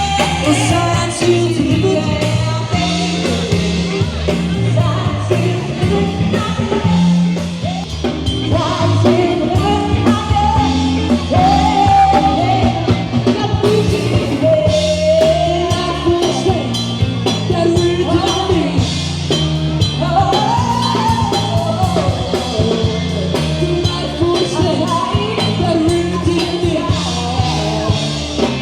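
A live rock band playing a song: a singer's voice over bass guitar and drum kit.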